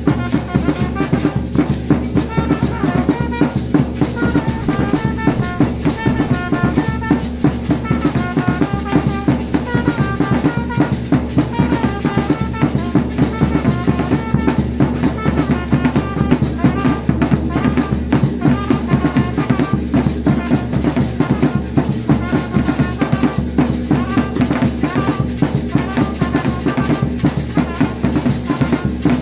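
A brass-and-drum band playing: several large double-headed drums beaten with sticks in a steady, driving beat, with brass horns playing short repeated melody phrases over it.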